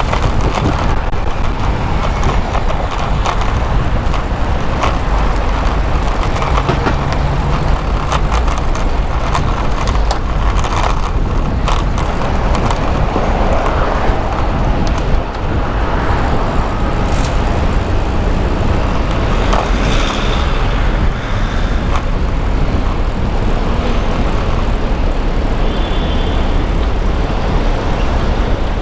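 City road traffic heard from a moving bicycle: a steady rumble of passing cars and trucks, with a deep, even wind rumble on the helmet microphone.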